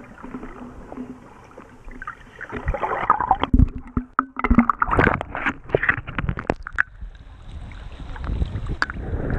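Sea water sloshing and splashing against a floating waterproof action camera, muffled while the camera is under the surface. A rapid run of splashes and bubbling clicks comes about two to seven seconds in. Near the end the camera breaks the surface and the sound opens up into lapping water and wind.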